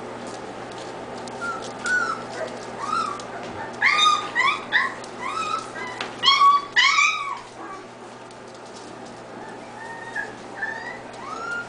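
Young puppies whining and yelping in a run of short, high calls that each rise and fall in pitch. The calls come thickest and loudest in the middle few seconds, with a few fainter whines near the end.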